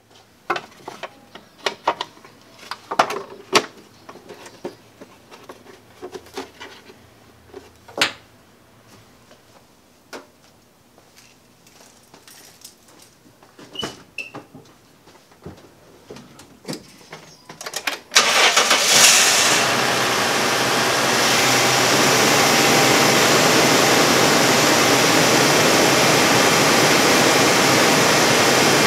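Scattered light clicks and knocks, then, about two-thirds of the way through, the 2008 Dodge Dakota's engine starts suddenly and settles into a loud, steady idle.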